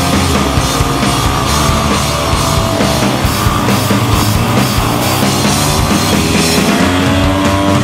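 Loud rock music soundtrack.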